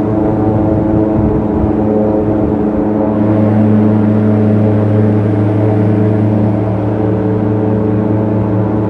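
Airboat engine and propeller running steadily, a loud drone whose lowest tone grows stronger about three seconds in.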